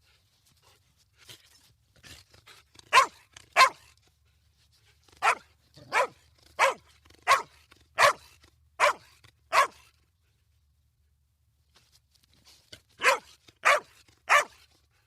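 A dog barking in short, sharp barks: two, then a run of seven at an even pace, then after a pause three more.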